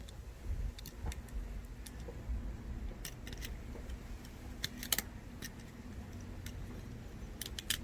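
Scattered light clicks and taps of small plug parts being handled and fitted together, a few in quick clusters, over a low handling rumble.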